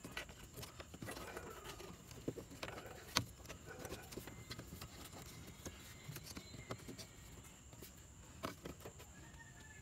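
Faint clicks and small plastic rattles of hands handling an LED headlight bulb, its wiring and connector at the back of a car's headlight housing, with one sharper click about three seconds in.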